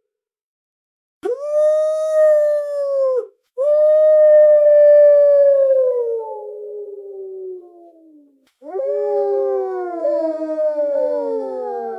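Wolf pack howling. After about a second of silence one long howl holds a level pitch, a second howl follows and slides slowly downward as it fades, then several wolves howl together at different pitches, all gliding down.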